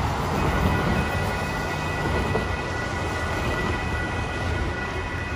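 Cars passing on wet pavement with a steady rumble and tyre hiss, while a railroad crossing warning bell rings from about half a second in as the crossing signals activate.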